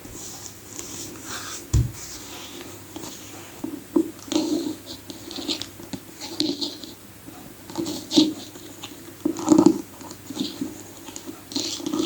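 Irregular scratching and tapping close to the microphone, in short uneven bursts.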